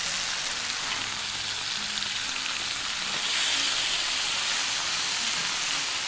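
Pieces of snakehead fish sizzling as they fry in hot oil in a pan; the sizzle gets louder about halfway through.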